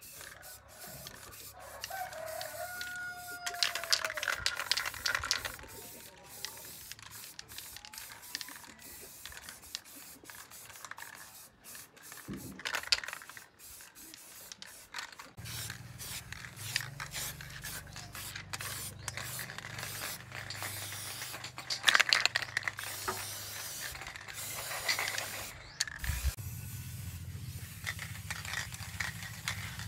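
Intermittent clatter and scraping from hand work on a metal machine. A rooster crows briefly about two seconds in, and a low steady motor hum starts about halfway through.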